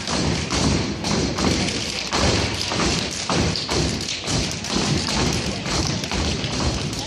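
Step team stepping in unison: a dense, rhythmic run of stomps of many feet on a portable stage.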